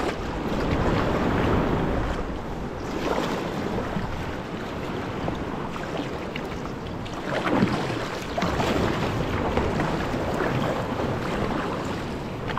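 Sea kayak paddling through small surf: waves breaking and water sloshing around the hull, paddle blades splashing, with wind buffeting the microphone.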